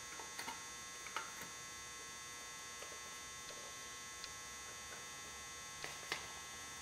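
Steady electrical hum, with a few faint clicks and taps.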